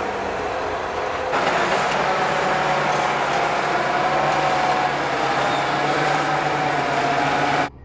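John Deere tractor engine running steadily under load while pushing chopped grass across a silage clamp with a front-mounted push rake. It gets louder about a second in and cuts off abruptly near the end.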